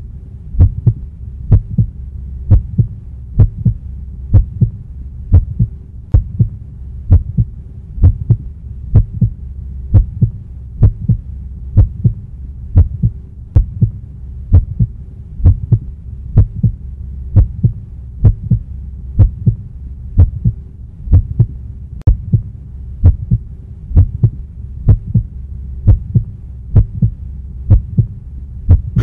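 Soundtrack heartbeat effect: a steady, even thudding pulse, about three beats every two seconds, over a low droning hum.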